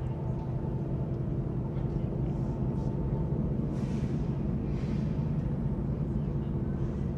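HO scale model train running on the layout: a steady low hum and rumble with a few constant tones.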